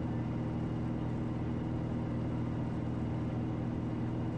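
Steady drone of a Piper Malibu's single piston engine and propeller in cruise flight, heard from inside the cabin.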